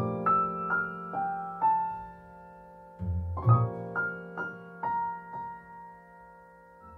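Background music: a piano playing a gentle melody over chords, two short phrases of struck notes, the second ending on a held chord.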